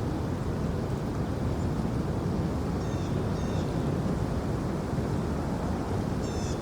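Steady low outdoor rumble, with a small bird giving short high chirps in two pairs, about three seconds in and again near the end.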